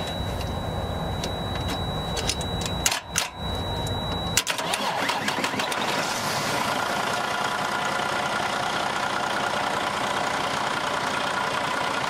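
Freightliner Cascadia's DD15 diesel being started straight from the starter, with a jumper wire across the solenoid and starter positive terminals to get around a no-crank fault. It cranks with a low rumble and several sharp clicks. About four seconds in the rumble cuts off abruptly, and the engine settles into a steady run.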